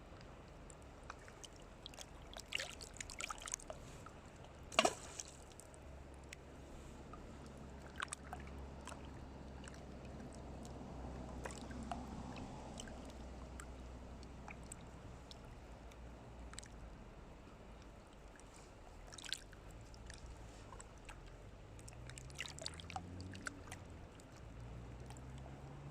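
A low, steady motor hum that rises in pitch near the end, with scattered clicks and knocks, the loudest about five seconds in.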